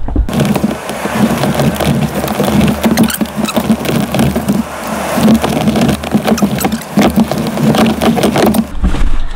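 Dense rattling and clunking of a third-row SUV seat being forced and wiggled loose from its floor latches. The noise starts abruptly just after the start and cuts off suddenly near the end.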